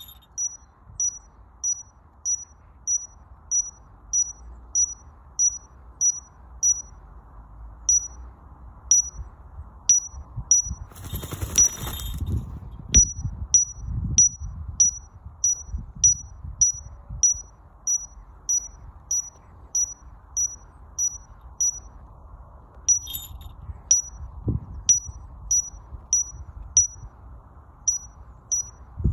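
A short, high electronic beep repeating about twice a second. Around 11 seconds in, and again briefly near 23 seconds, a falconry bell on the gyr-saker falcon jingles as the bird moves, with a rush of wind on the microphone.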